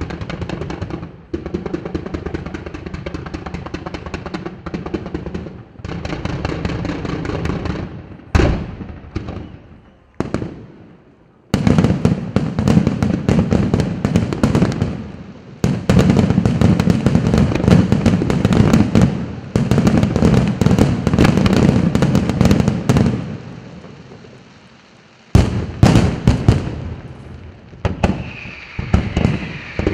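Fireworks display: dense barrages of rapid shell bursts and crackle, loud throughout. Sharp single reports come about eight seconds in and again a few seconds before the end, and there are two short lulls before the firing starts up again suddenly.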